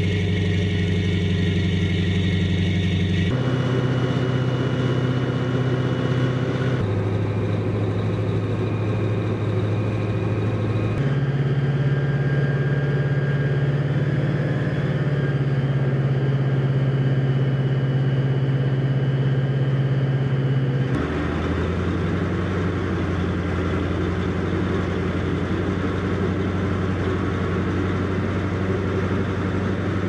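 Amphibious Assault Vehicle's diesel engine running steadily with a deep hum. Its pitch and tone change abruptly a few times.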